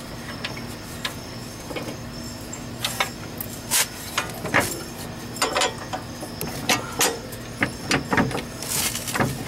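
Irregular metallic clicks and knocks: a steel bolt being handled and worked into the lower fork mount of a coilover on a Nissan 240SX's suspension, with a steady hum underneath.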